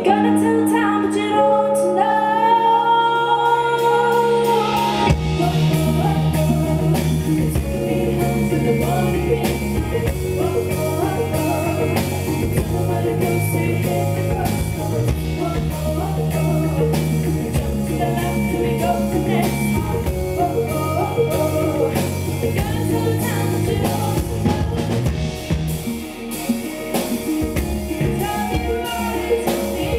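Live pop-rock band with a female lead singer: held, bending vocal notes over light accompaniment, then about five seconds in the drums and bass guitar come in and the full band plays on with electric guitar.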